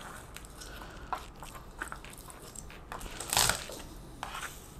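Garlic cloves being cracked under a chef's knife on a plastic cutting board: faint rustles of papery skin and light taps, with one louder crunch about three and a half seconds in.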